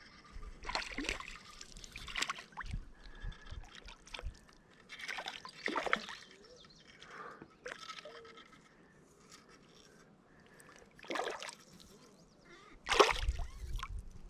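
Water splashing and sloshing in several short bursts, the loudest near the end.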